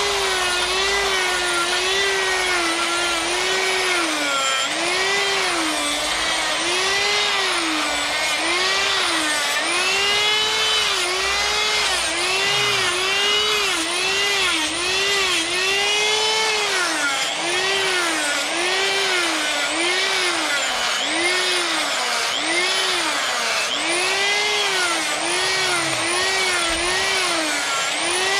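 High-speed power carving tool cutting into wood in repeated short strokes. Its whine sags in pitch as each stroke bites and recovers between strokes, about once a second.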